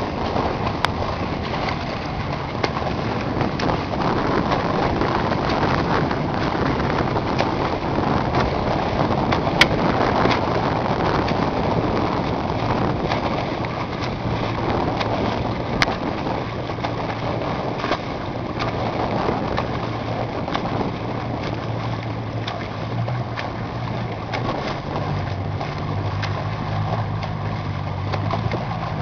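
Small motorboat's engine running steadily with water and wind noise, its low hum growing stronger in the last few seconds.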